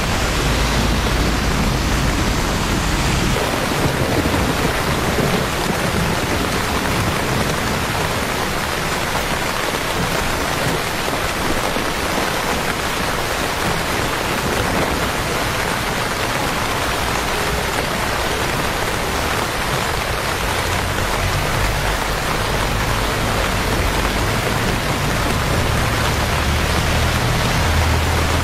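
Steady rain falling on wet pavement and street, a continuous hiss. A low rumble sits under it for the first few seconds and again in the last several seconds.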